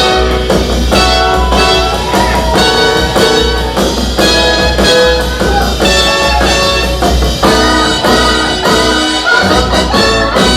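Loud music led by brass horns, with a steady heavy bass under changing held notes.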